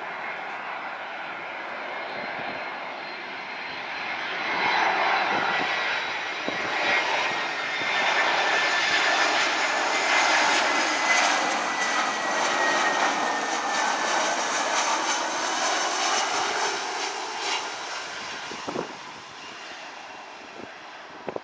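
Twin-engine jet airliner on final approach with its landing gear down. The engine noise swells as it passes close by, with a thin whine that falls slightly in pitch, then fades away near the end.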